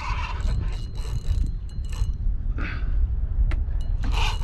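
Spinning fishing reel working during the fight with a hooked tarpon, clicking and whirring in short bursts a few times, over a steady low rumble of wind on the microphone.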